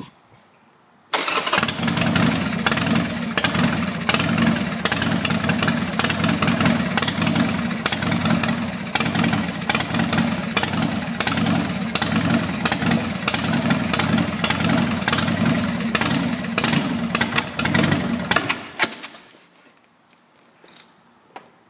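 Harley-Davidson Sportster V-twin being cranked on its electric starter for about 17 seconds with an even, pulsing churn but not catching: the engine won't start. The cranking begins suddenly about a second in and stops near the end.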